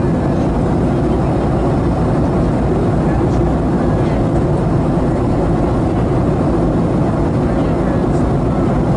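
Steady low roar inside the cabin of a Boeing 737-800 at cruise: the rumble of its CFM56 engines and the rush of airflow past the fuselage, unchanging throughout.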